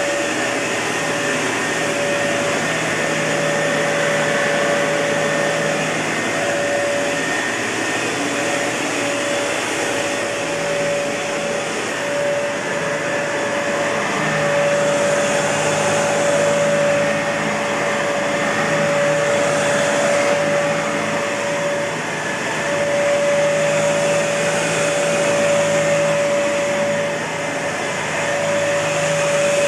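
Kenmore Elite Cleva upright vacuum cleaner running steadily: a rush of air with a high motor whine that flickers out briefly now and then, the level rising and falling slightly.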